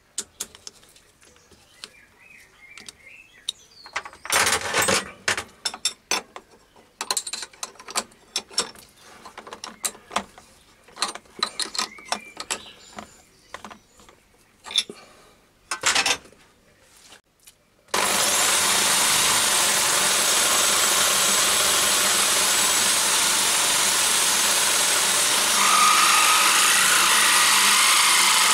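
Metal clinks and knocks as a spanner loosens and tightens the nut of an ER20 collet chuck to change a drill bit. About two-thirds of the way in, the electric power drill driving the toolpost drill switches on suddenly and runs steadily, with a higher whine joining near the end.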